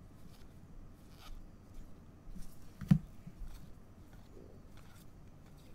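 Soft rustling and light clicks of trading cards being slid one by one off a stack in gloved hands. There is one sharp knock a little before three seconds in.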